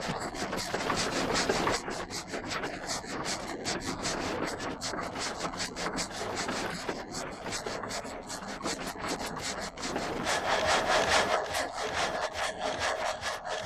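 Water-powered reciprocating frame saw cutting a log, its blade rasping through the wood in rapid, even up-and-down strokes. About ten seconds in, a steady high whine joins the strokes.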